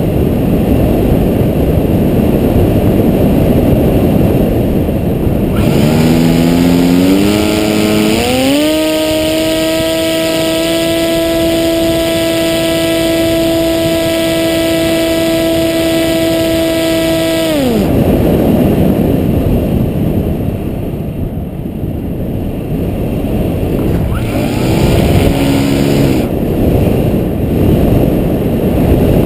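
Hacker A30L brushless electric motor and propeller on a Maxi Swift flying wing, heard on board with wind rushing over the microphone. About six seconds in, the motor whine climbs in steps as the throttle comes up, holds a steady whine for about nine seconds, then cuts off abruptly, leaving the wind rush. A short weaker burst of motor comes near the end.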